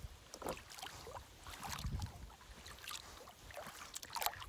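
Kayak paddle strokes: the blades dipping into the water with a few soft splashes and drips.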